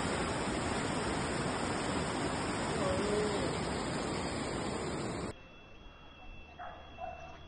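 Fast-flowing floodwater rushing down a street: a steady, dense rushing noise that cuts off suddenly about five seconds in, leaving only faint background sound.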